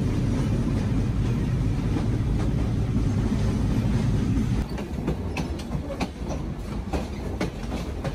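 Train running on the rails: a steady low rumble with clicks of the wheels over rail joints. The rumble drops noticeably in level about halfway through, leaving the sharper clicks.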